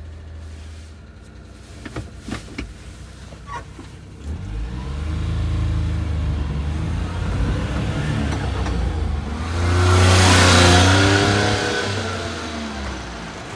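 1997 Suzuki Carry kei truck's small three-cylinder engine idling, with a few clicks. After about four seconds the truck drives off and passes close by: the engine note climbs, is loudest around ten seconds in as the truck passes, and fades as it goes away.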